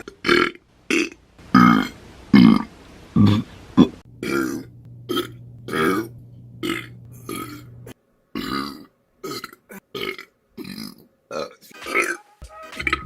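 A woman burping over and over, about two dozen short loud burps in quick succession with brief gaps between them, with music underneath.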